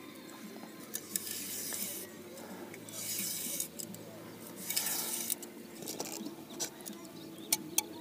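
Oars of an inflatable PVC boat rowing: the blades swish through the water three times, about every two seconds, with a few sharp clicks near the end.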